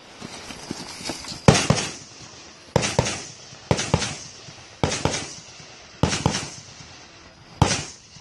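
AR-15 rifle fired six times in slow, aimed succession, roughly a second apart, each shot followed by a short rolling echo.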